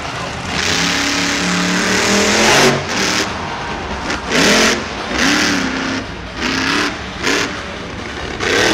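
Time Flys monster truck's supercharged V8 engine at high throttle, its pitch climbing for the first couple of seconds. It then revs in a string of short bursts, about one a second, each swooping up and back down in pitch.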